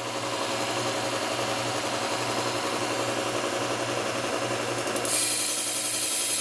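Bucktool low-speed belt sander running with a steady motor hum while a kitchen knife edge is ground against its abrasive belt to raise a burr. The grinding becomes louder and hissier about five seconds in as the blade presses harder on the belt.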